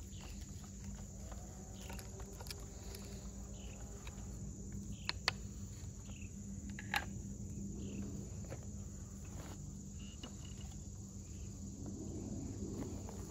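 Knife blade carving a divot into a water oak fireboard: light scraping and cutting in the wood, with a few sharp clicks of the blade about five and seven seconds in.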